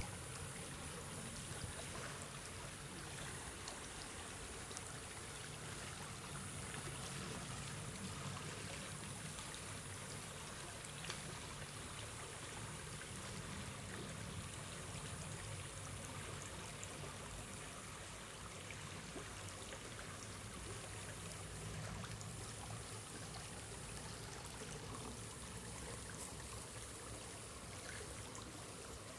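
Shallow brook flowing over a sandy, pebbly bed: a steady rush and trickle of running water.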